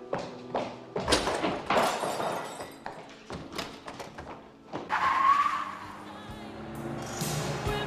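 Film soundtrack music with a run of sharp knocks and clatter in the first half. A driving beat builds near the end, leading into a pop song.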